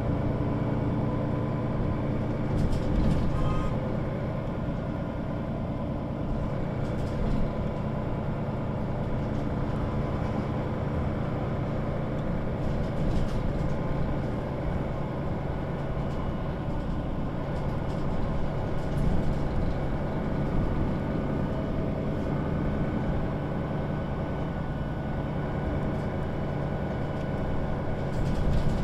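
Mercedes-Benz O 530 G Citaro articulated bus with its diesel engine running steadily, with a few short knocks or rattles spread through.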